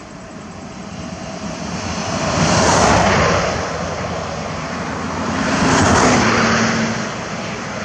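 Two vehicles passing close by, one after the other: road noise swells and fades twice, about three seconds apart.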